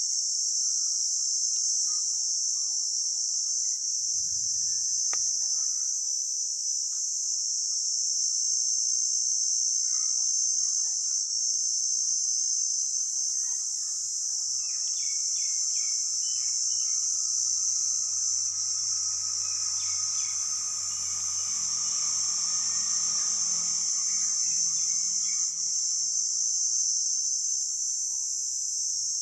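Crickets chirping in a sharp, high-pitched, unbroken drone that holds steady throughout.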